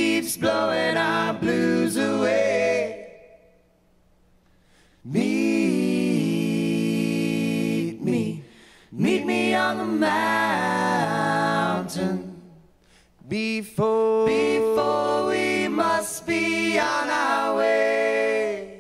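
Background music of unaccompanied singing: voices singing in phrases, with a pause of about two seconds early on and shorter breaths between later phrases.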